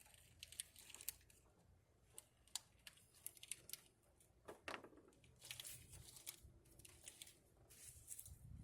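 Faint, irregular clicks, taps and rustling from hands working on parts, with a few sharper clicks scattered through.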